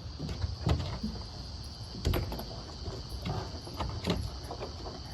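Irregular thumps and rustling over a low rumble, with a steady high-pitched insect drone behind.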